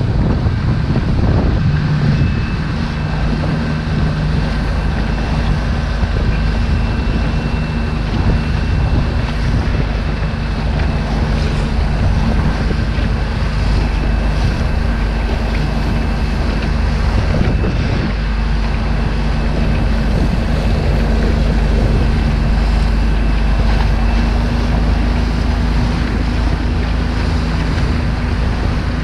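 Tiller-steered outboard motor of an inflatable boat running steadily under way, a low hum with a faint high whine, under heavy wind buffeting on the microphone.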